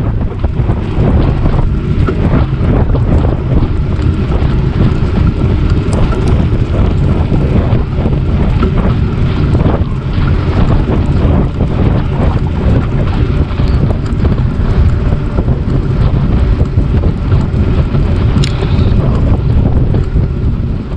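Wind buffeting the camera microphone during a fast bicycle ride, a loud steady rumble that dies away suddenly at the very end as the bike stops.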